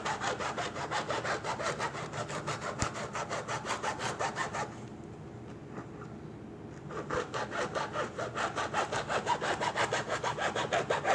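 A blade sawing back and forth through the tough inner layer of a football in rapid, even strokes. The strokes pause for about two seconds midway, then resume.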